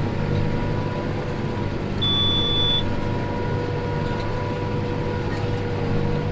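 Tractor and round baler running steadily while baling thin spring barley straw, with one short high electronic beep lasting under a second about two seconds in.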